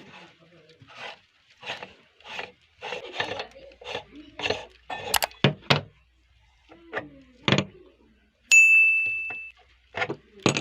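Radish being crunched and rasped through a meat grinder: a run of short scraping bursts, then a few sharper clicks. About three quarters of the way in comes a single loud, bright ding that rings and fades over about a second.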